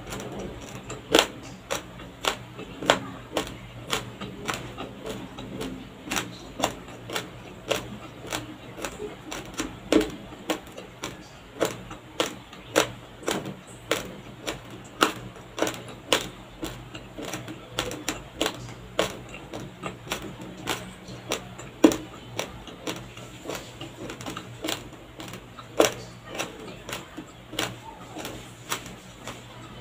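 Raw uncooked white rice grains crunched between the teeth while chewing, in irregular sharp crisp cracks about once or twice a second.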